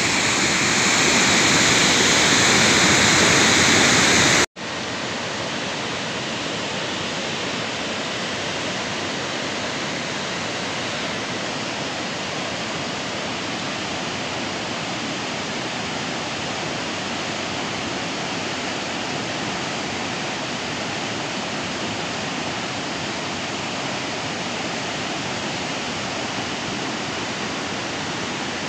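Floodwater of a swollen mountain stream rushing over a rocky bed, a steady, even rushing noise. About four and a half seconds in, it cuts off abruptly and resumes a little quieter.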